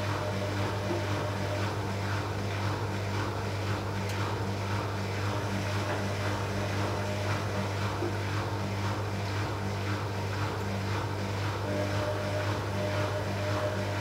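Arçelik 5900E (Bauknecht-built) front-loading washing machine running with its drum turning, a single wet bath towel inside, during an unbalance test: a steady motor hum with a faint regular pulsing from the turning drum.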